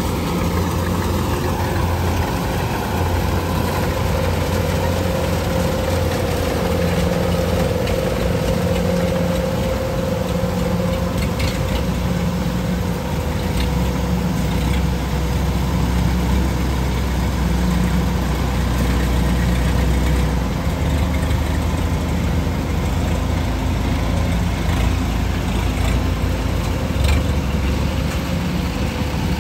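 Kubota DC-105X rice combine harvester's diesel engine running steadily under load while it cuts and threshes flattened rice, a continuous low drone with a steady whine over it.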